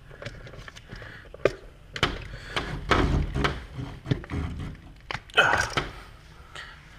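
Irregular clicks, knocks and scraping of a screwdriver and hands working an outlet's terminal screws as the wires are tightened down, with the loudest burst about five and a half seconds in.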